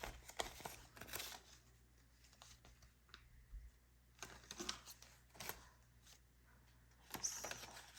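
Faint rustling and flicking of paper banknotes and envelopes being handled, in scattered short bursts.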